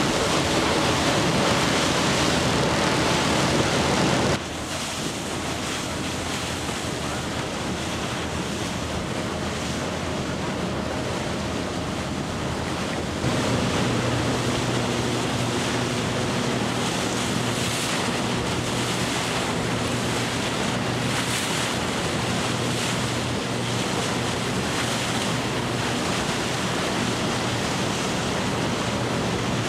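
Water rushing and splashing past a moving boat's hull with wind on the microphone, over a steady engine drone. The sound drops abruptly about 4 seconds in and steps up again about 13 seconds in, where the engine drone becomes plainer.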